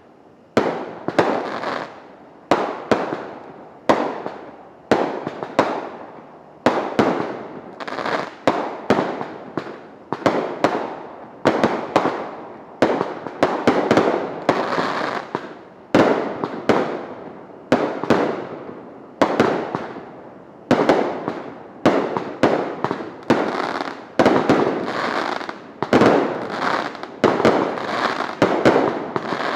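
Liberty Bell brand consumer fireworks going off in a rapid, unbroken series of bangs, roughly one or two a second, each one dying away before the next.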